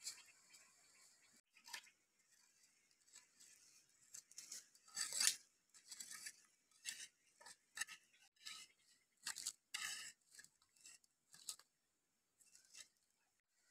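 Short-handled hoe scraping and digging through dry earth and ash to uncover buried eggs: a run of irregular scrapes and crunches, loudest about five seconds in.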